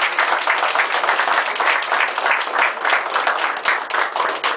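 Small group applauding: dense, fast hand clapping that thins slightly near the end.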